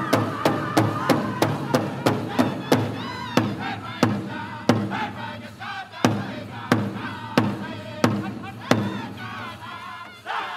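Powwow drum group playing a prairie chicken dance song: a big drum struck in a steady fast beat, about three to four strikes a second, under high-pitched male singing with wavering voices. About halfway through the strikes slow to widely spaced single beats, and they stop shortly before the end while the singing carries on.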